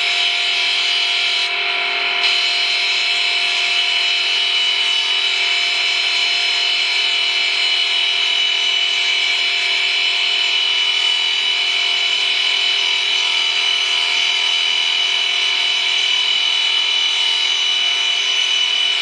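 Vertical-column stone profiling machine grinding a stone sphere: a steady, high-pitched whine over continuous grinding noise.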